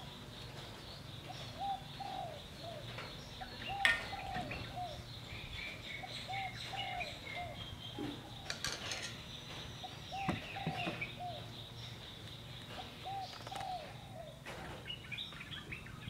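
Doves cooing in short phrases of three or four soft notes, repeated every couple of seconds, with small birds chirping faintly. A sharp knock comes about four seconds in, and a few fainter ones follow.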